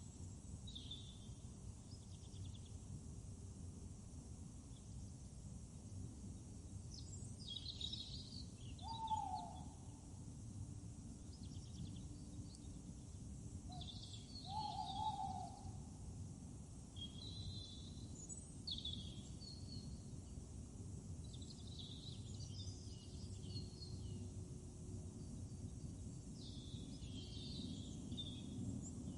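Outdoor ambience of songbirds chirping repeatedly over a steady low rumble, with two louder short falling calls about nine and fifteen seconds in.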